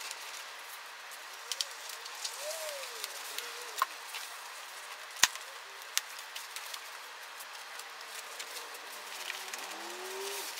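Handling noise from fiberglass pipe-insulation miters being fitted around an elbow: the white paper jackets rustle and crinkle, the adhesive release strips are peeled from the seams, and there is one sharp click about five seconds in. Faint low cooing is heard twice underneath.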